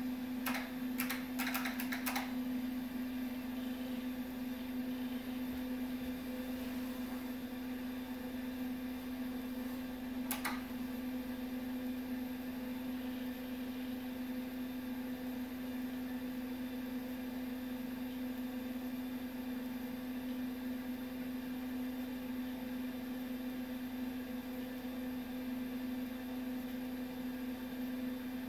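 Steady hum of a Data General MV/3200 minicomputer and its terminal running while booting, with a faint high whine above it. A quick run of sharp clicks comes in the first two seconds, and a single click about ten seconds in.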